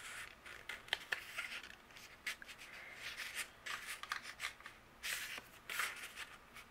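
Paper recipe cards sliding into a cardstock card pocket: faint rustling and scraping of paper on paper, with light ticks, a little louder about five seconds in.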